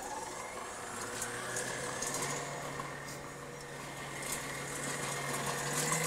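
Electric kitchen-appliance motor spinning up and running with a steady hum and whine, starting to wind down at the very end.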